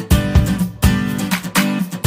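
Background music with strummed guitar chords in a steady rhythm.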